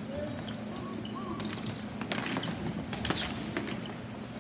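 Ball hockey play: scattered sharp clacks and taps of sticks and ball, several in the middle seconds, over a steady low hum.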